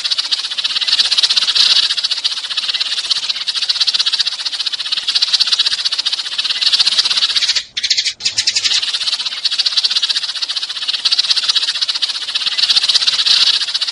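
A flock of sparrows chirping in dense, continuous chatter, played as a bird-lure recording. It cuts out briefly twice a little past halfway, then carries on.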